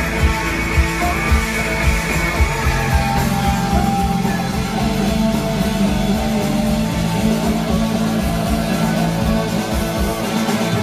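Rock music with guitar and a steady drum beat, playing loudly.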